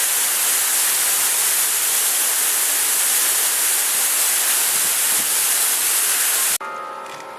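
Waterfall's steady rush of falling water, cut off abruptly near the end, replaced by church bells starting to ring.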